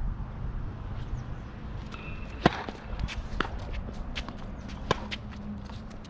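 Tennis ball struck by a racket, a sharp crack about two and a half seconds in and another near five seconds, between quick footsteps and shoe scuffs on the hard court.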